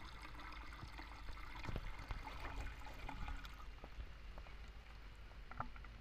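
Faint trickling and gurgling of water in a borewell casing as the water from a hose drains down into the bore.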